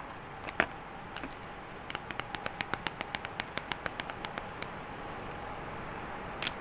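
Small sharp clicks: one about half a second in, then a quick, even run of about twenty clicks lasting nearly three seconds, and one more near the end, over a faint steady hum.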